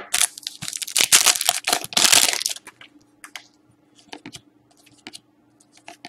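Foil wrapper of a hockey card pack crinkling and rustling for about two and a half seconds as the cards are pulled out, then light scattered clicks of the stiff cards being slid and flicked through by hand.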